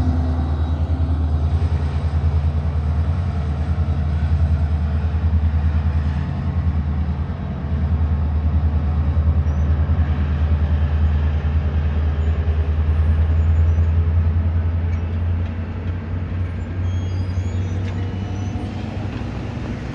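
A train rumbling past: a steady low drone with no horn sounding, easing off a little near the end.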